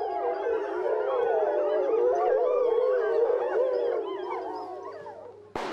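A pack of grey wolves howling in chorus, many voices overlapping and gliding up and down in pitch, fading out near the end. A single sharp knock comes just before the end.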